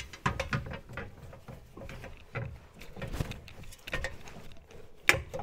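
Irregular clicks, knocks and rustling of metal suspension parts being handled and fitted on an MGB's front suspension as the coil spring is worked into place, with one sharper click near the end.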